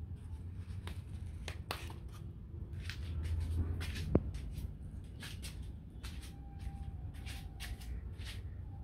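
Handling noise: scattered light clicks and rustles over a steady low rumble, with one sharper click about four seconds in.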